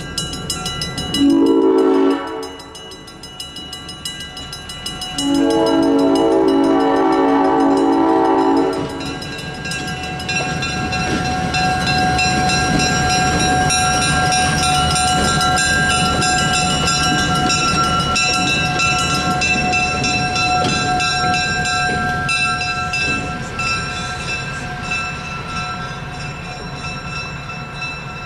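An EMD GP7 diesel locomotive's air horn sounds a short blast and then a long blast, the close of a grade-crossing signal. The locomotive then runs past across the crossing, its diesel engine and wheels on the rails holding steady and slowly fading near the end.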